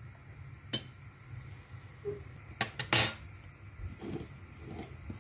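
A metal spoon clinking against a small metal pan of ghee: a few sharp clinks, the loudest about three seconds in, with fainter knocks after.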